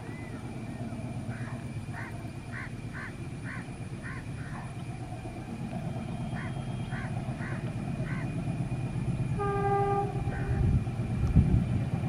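Low rumble of an approaching diesel locomotive-hauled train, growing steadily louder, with one short blast of the locomotive horn about nine and a half seconds in. Over the first part a bird calls in rapid runs of short repeated notes.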